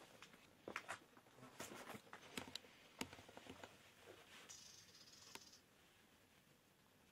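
Faint, irregular clicks and scuffs, like footsteps and movement over gritty ground, with a brief hiss about four and a half seconds in.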